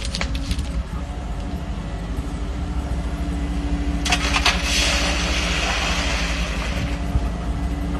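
Volvo excavator's diesel engine running steadily with a low rumble. About four seconds in there is a cluster of sharp clicks and a hiss lasting a couple of seconds.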